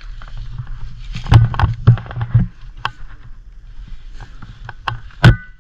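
Scattered sharp cracks and knocks, about six of them, loudest a little past a second in and again about five seconds in, over a steady low rumble of wind on the microphone; the last loud crack leaves a brief ringing tone.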